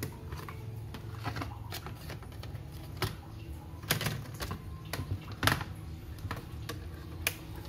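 Irregular clicks and knocks of a laptop's plastic chassis and motherboard being handled and shifted by hand, the loudest knocks about four and five and a half seconds in, over a steady low hum.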